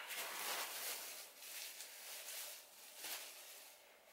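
Faint, uneven rustling and crinkling of plastic wrap as plastic-wrapped clothing bundles are handled on a plastic sheet.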